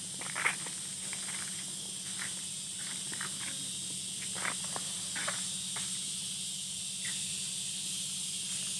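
Steady high insect drone, with footsteps crunching on dry leaves and twigs; the sharpest crunch comes about half a second in.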